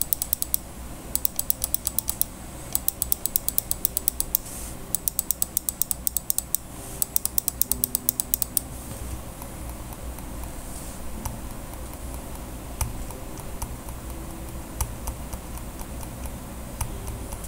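Razer Mamba gaming mouse buttons clicked rapidly in quick runs, loud and crisp, for the first eight or nine seconds. Then the ASUS Marshmallow Mouse MD100's buttons are clicked, and its quiet switches give only faint, scattered clicks.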